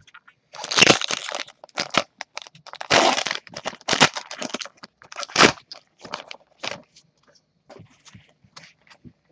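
Foil trading-card pack torn open, its wrapper crinkling and crackling loudly in a run of bursts over the first five seconds or so, then only faint scattered ticks.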